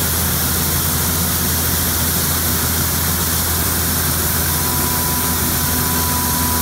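Case International combine harvester running steadily while its unloading auger pours grain into a truck: an even engine hum under a wide hiss. A thin steady whine joins about four and a half seconds in.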